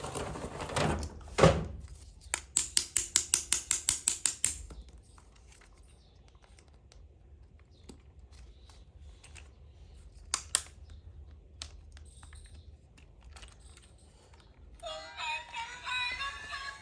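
Plastic toy play-set pieces being handled: a rustle and a sharp click, then a quick run of about ten small clicks, then scattered light taps. Near the end an electronic tune with synthetic singing starts.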